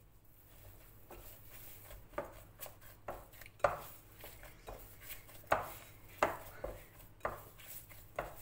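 Hands kneading soft cookie dough in a glass bowl: irregular soft thuds and knocks, about one a second, as the dough is pressed against the glass, over a faint rustle.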